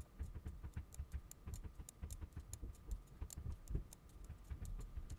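Rapid, irregular run of faint computer mouse clicks, several a second, with soft low thuds beneath.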